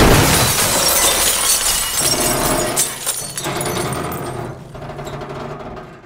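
Loud rushing traffic noise heard from inside a moving car, fading toward the end.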